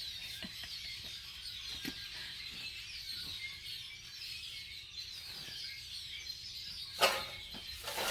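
A large flock of birds gathered in trees, many calling at once in a dense, steady, high-pitched chatter. A loud, brief clatter cuts in about seven seconds in.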